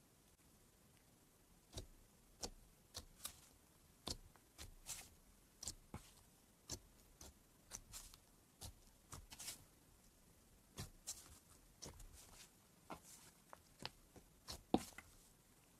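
Hands kneading and stretching a thick slime, giving irregular small clicks and pops of trapped air about twice a second. They start about two seconds in, and the sharpest pop comes near the end.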